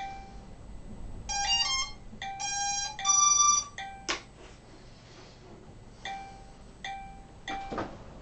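Electronic beeper tones as the drone's electronics power up: a short tune of several pitched notes in the first few seconds, then short single beeps repeating about every three quarters of a second. A knock about four seconds in and a rustle near the end.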